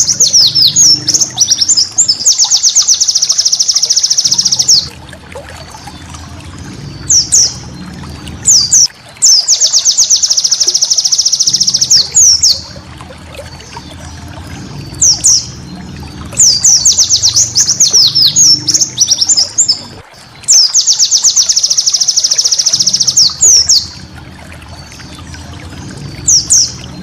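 White-eye (pleci) singing in loud, high-pitched bouts of rapid trills and buzzy chatter, each lasting a few seconds, with short pauses between them.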